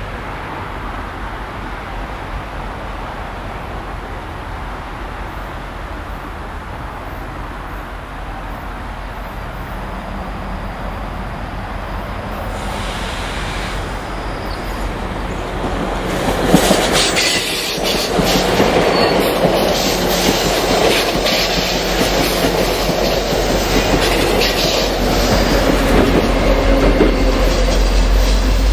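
Coaster bi-level commuter train, cab car leading, approaching and passing close by. A slowly rising rumble becomes a loud rush about two-thirds of the way in, with the wheels clicking over the rail joints as the cars go by. Near the end a deep drone grows as the diesel locomotive shoving at the rear comes past.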